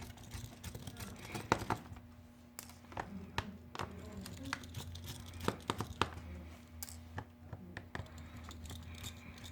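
Small plastic phone parts and tools being handled: irregular light clicks, taps and scrapes as the Samsung Rugby 2's housing and board are worked apart, over a faint steady hum.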